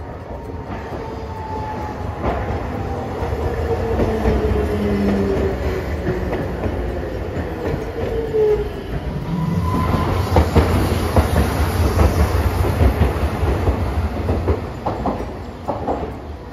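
Hiroshima Electric Railway streetcar approaching and passing close by: its electric motor whine falls slowly in pitch, then from about ten seconds a loud rumble of wheels on the rails with many clicks, thinning to separate clacks near the end.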